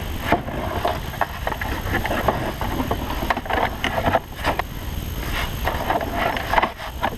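Hand tools clinking and scraping on metal in irregular short knocks during wrench work on the fan pulley bolts and belt at the front of a Cummins engine, over a steady low rumble.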